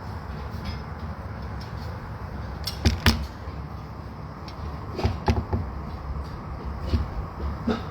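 Scattered sharp knocks and clicks of tools and hands at work on an opened beehive, the loudest about three seconds in, with more around five and seven seconds, over a steady low rumble.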